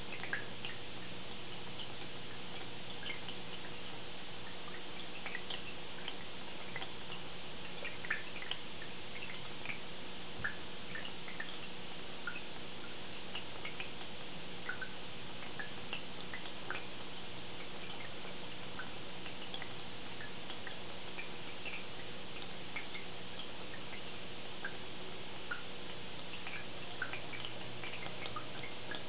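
Aquarium filter running: a steady low hum under a hiss of moving water, with small irregular drips and plinks of water falling back into the tank.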